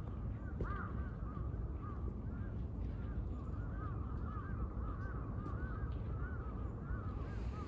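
A flock of birds calling, many short rising-and-falling calls overlapping throughout, over a steady low rumble.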